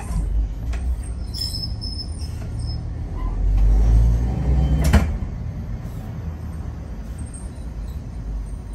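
Nagasaki streetcar running, heard from inside the cab: a steady low rumble of motor and wheels on rail that swells about three to four seconds in, with a single sharp wheel clack about five seconds in as the tram rolls onto the junction's crossing tracks.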